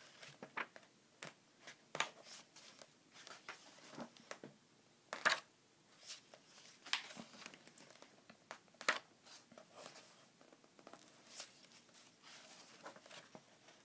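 Pages of a large paperback comic book being turned and handled: faint paper rustling with several sharper flicks and crinkles as the pages flip over.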